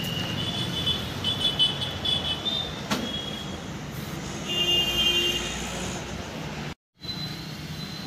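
Steady road traffic noise with a low hum, with a few short high-pitched tones over it. It breaks off briefly near the end.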